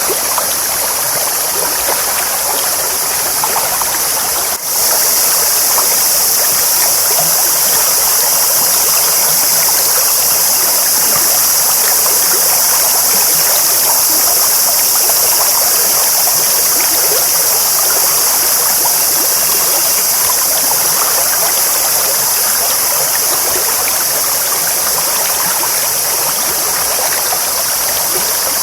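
A clear, shallow stream babbling steadily, a dense rushing and splashing of water, with a brief dip in level about four and a half seconds in.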